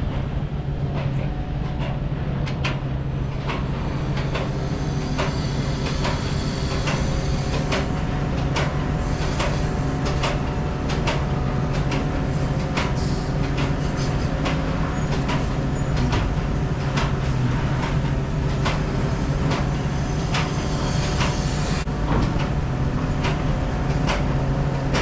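A truck's engine running with a steady low drone, with frequent sharp rattles and knocks over it.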